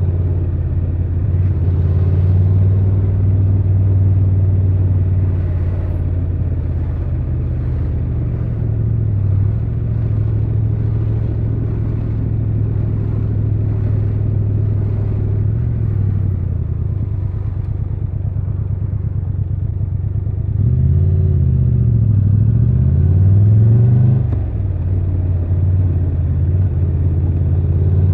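Triumph Tiger 1200 Rally Pro's three-cylinder engine running at steady riding revs. About twenty seconds in its pitch rises and falls several times as it revs up and eases off, then settles again.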